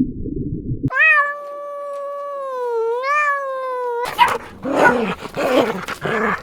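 Cat giving one long, drawn-out meow that holds steady, dips and rises again, lasting about three seconds. It is preceded by the end of a low, rough animal sound and followed, about four seconds in, by several shorter, rougher animal calls.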